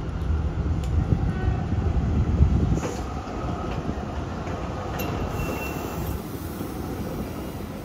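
Basel tram, a motor car with a trailer, running past on street track through a curve: a low rumble of wheels on rail, loudest in the first three seconds and then easing off. A few sharp clicks and a brief faint high whine about five seconds in.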